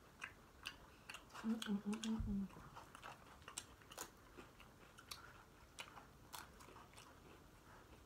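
Close-up chewing and crunching of tortilla chips, with many short crisp crunches spread through. A brief voiced sound comes about one and a half seconds in.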